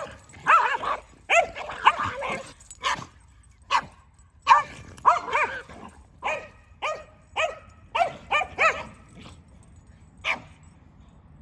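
A Keeshond and a Boston Terrier barking at each other in rough play: a quick run of barks, then single barks about every half second, the last one just after ten seconds in.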